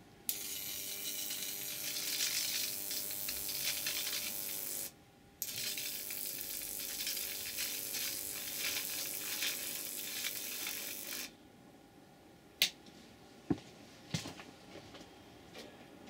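High-voltage arc across an electric fly killer's grid, fed about 4,000 volts from two ballasted microwave oven transformers, crackling continuously as it burns across a leaf lying on the grid wires. It runs for about four and a half seconds, stops for half a second, then strikes up again for about six seconds before cutting off suddenly. A few sharp single snaps follow.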